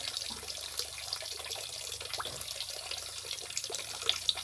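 Water running steadily from a hose into a fish pond, a continuous splashing trickle with small drips.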